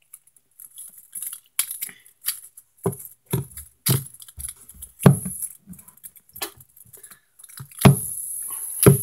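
Handling noise from a fidget spinner being gripped and fiddled with by hand right at the microphone: irregular clicks and rubbing with several louder knocks. A steady hiss comes in near the end.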